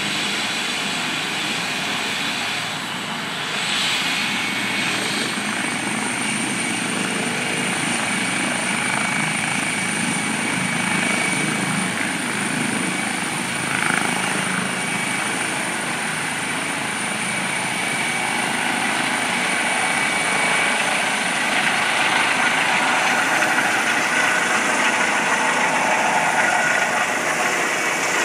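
Helicopter flying overhead, its rotor and engine noise steady and growing louder near the end. A car passes about halfway through.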